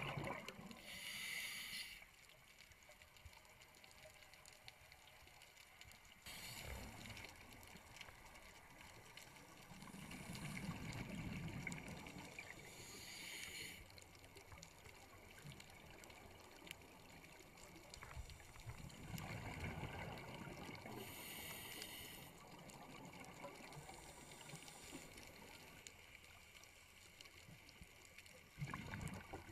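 Scuba diver breathing through a regulator underwater: a hissing inhalation alternating with a bubbling exhalation, the breaths several seconds apart.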